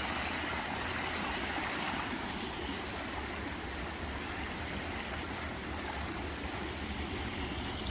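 Small stream and waterfall rushing: a steady, even wash of running water.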